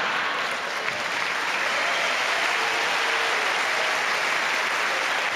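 Large theatre audience applauding steadily in response to a punchline in a live comedy sketch.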